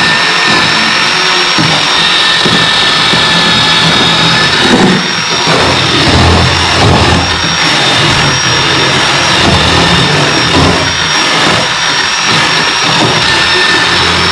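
Chainsaw running and cutting into the wooden boat transom, with a steady high whine and a lower tone that swells and drops again and again as the bar bites into the wood.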